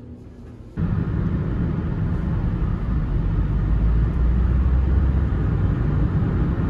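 Steady low rumble of vehicle noise that starts abruptly about a second in.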